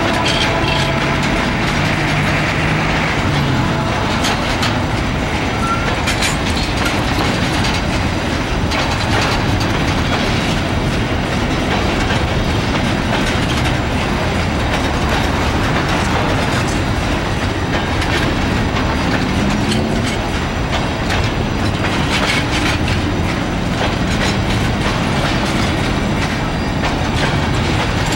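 Empty mineral hopper cars of a freight train rolling past close by: a steady, loud clatter of wheels on the rails and rattling cars, with many sharp clicks and knocks.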